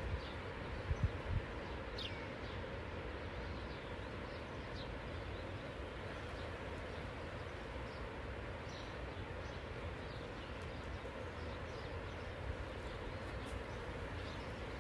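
Seaside outdoor ambience: a steady wash of sea and wind noise with a few faint, short bird chirps scattered through. A few low thumps come about a second in.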